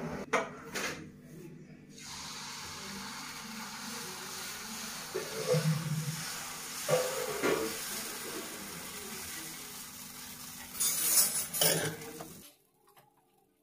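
Dosa batter sizzling on a hot nonstick tawa as it is spread round with a ladle, a steady hiss with a few louder flare-ups and scrapes of the ladle on the pan. The sizzle stops abruptly near the end.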